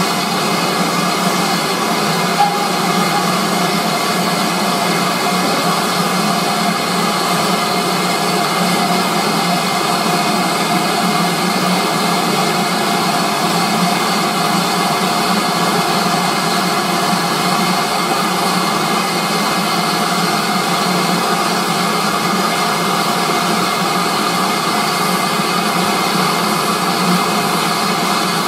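A diesel engine idling steadily with a whine, its drone unchanging throughout.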